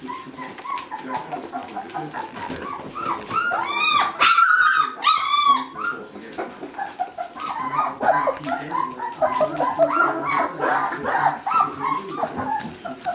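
A litter of three-week-old puppies whining and yelping over each other in many short overlapping calls, with a few loud, high-pitched yelps about four to six seconds in.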